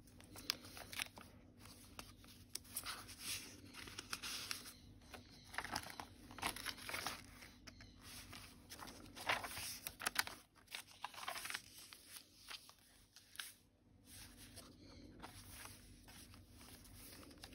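Paper pages of a handmade journal rustling and crinkling as they are turned and handled, in short irregular bursts of paper noise.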